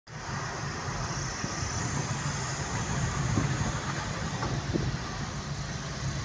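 Steady engine and tyre noise of a moving car heard from inside the cabin, a low hum under a broad hiss, with a couple of light knocks midway.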